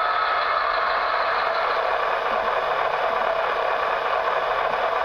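Model AC6000 diesel locomotive's sound-decoder speaker playing steady engine sound mixed with hiss. The static points to a faulty speaker.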